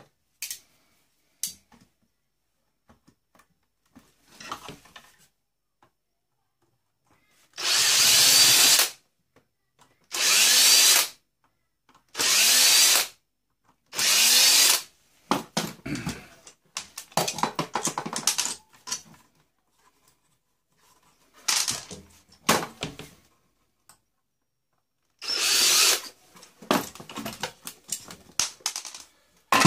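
Power drill-driver run in a series of short bursts of a second or so, with its pitch sweeping as it spins, as screws are driven out of a boombox's casing. Clicks and rattles of the parts being handled fall between the bursts.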